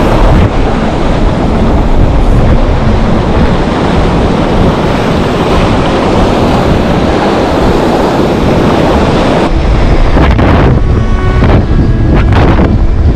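Strong wind buffeting the microphone over surf breaking and washing around the legs in shallow water, a loud steady rush with a heavy low rumble that grows heavier about two-thirds of the way through.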